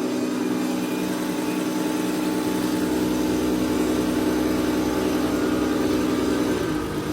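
Diesel fuel injection pump being driven on a calibration test bench while its fuel delivery is measured: a steady mechanical hum that drops slightly in pitch near the end.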